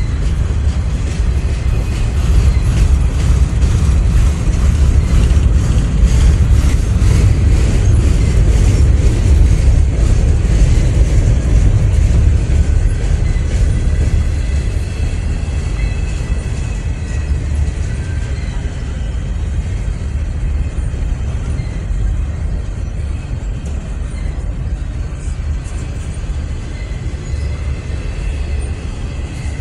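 Double-stack intermodal freight cars rolling past on the rails: a heavy, steady rumble with the clatter of wheels over the track. It is loudest in the first half, then slowly grows quieter.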